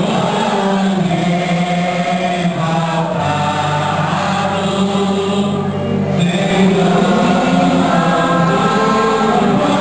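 Many voices singing a religious chant together, with long held notes.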